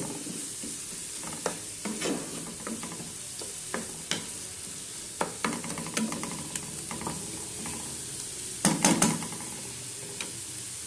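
Chopped onion, pepper and carrot sizzling in oil in a frying pan, stirred with a spoon that scrapes and taps against the pan, with a louder run of scrapes near the end.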